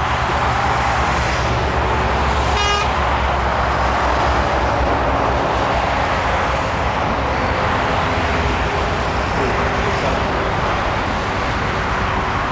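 Steady loud roar of a Boeing 747's jet engines on approach, with a brief high-pitched tone about two and a half seconds in.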